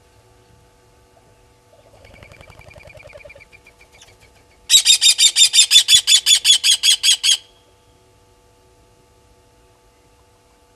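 Blacksmith lapwing giving its alarm call, a loud rapid series of sharp metallic notes, about six a second for under three seconds, after fainter rapid calls a couple of seconds in. The call is an alarm at a nearby African harrier-hawk, a raptor.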